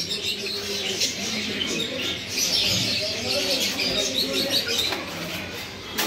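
Caged pigeons cooing in low, wavering tones, with small cage birds chirping high in the background.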